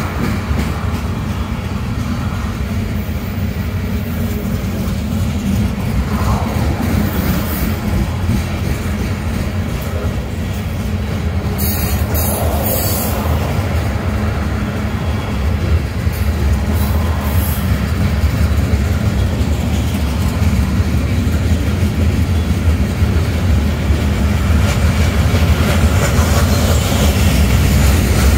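Freight cars of a CSX mixed freight train rolling past: a steady low rumble of steel wheels on rail, growing a little louder near the end.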